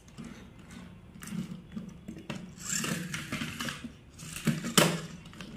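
Plastic toy vehicles being handled, pushed and set down on a tabletop: scattered clicks, knocks and rubbing of plastic wheels, with one sharp knock near the end.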